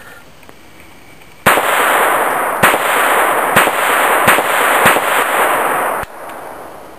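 Taurus PT22 .22 LR pistol firing about five shots over three and a half seconds, about one a second, with a continuous harsh noise between the shots that cuts off suddenly about six seconds in.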